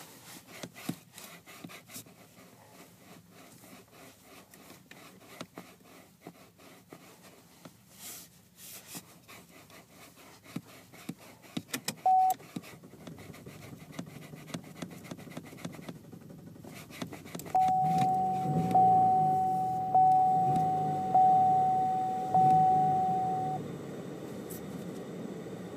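Car cabin sounds: faint rustling and clicks, a single short beep about halfway through, then the car's warning chime dinging five times about a second apart. Under the chime the engine starts up, and it keeps idling with a low steady rumble after the chime stops.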